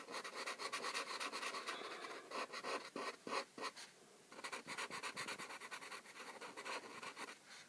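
Black felt-tip marker scribbling quickly back and forth on paper to fill in a small area solid black, with a brief pause about four seconds in.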